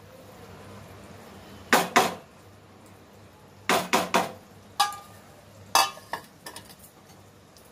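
Metal kitchenware clanking against a cooking pan: a string of sharp clanks in small groups, two, then three, then single knocks, one ringing briefly, with a few lighter taps near the end.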